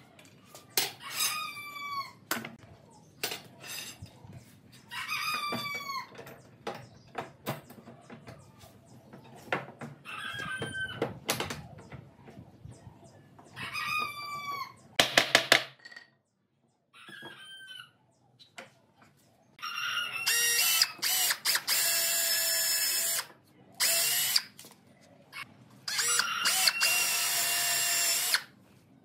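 A rooster crows about five times, with scattered sharp knocks between the crows and a loud cluster of knocks about halfway through. Then a cordless drill runs in several bursts, boring into the pine bed frame.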